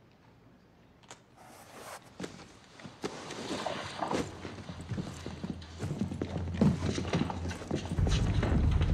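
Hard footsteps, knocks and clatter of several people moving on a wooden bar floor, building steadily louder, with a few short squeaks. Near the end a loud, steady low rumble with a held tone comes in.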